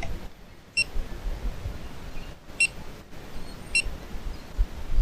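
Three short, high, steady-pitched beeps, irregularly spaced about a second or two apart, over a low rumble.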